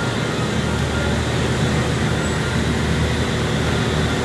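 Steady street traffic noise: a continuous din of passing motorbikes and other vehicles, with no single event standing out.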